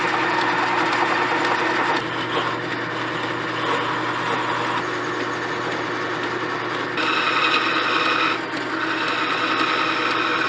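Wood lathe running with a steady motor hum while a gouge cuts a spinning wooden blank, a continuous scraping hiss of shavings peeling off. The cutting sound changes abruptly a few times, around two, five, seven and eight seconds in.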